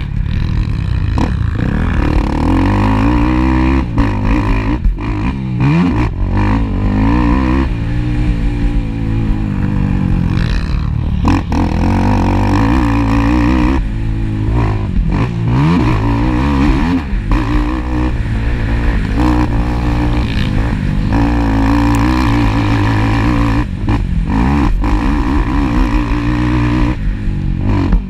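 Racing ATV (quad) engines running hard, revving up and down over and over as they accelerate and shift, with more than one machine heard at once at times.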